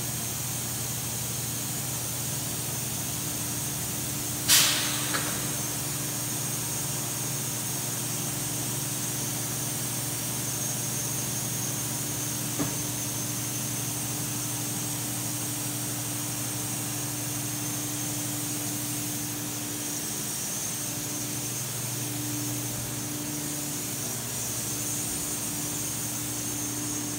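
Steady hum of running industrial machinery with a constant hiss, plant noise around a thermoforming machine. A single sharp knock about four and a half seconds in is the loudest sound; in the last few seconds the hum's higher tone cuts in and out.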